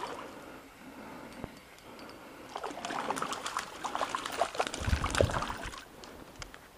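Shallow stream water trickling, with a burst of close splashing and sloshing that starts about two and a half seconds in and lasts about three seconds.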